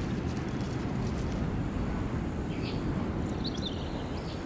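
Steady low rumble of open-air nature ambience, with a few faint, short high bird chirps about halfway through and again a little past three seconds.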